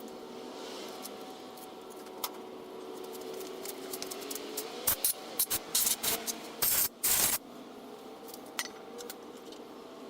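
Aerosol cleaner sprayed onto a lawn edger's carburetor in a quick series of short hissing bursts, ending in a longer spray, among light clicks and handling noises.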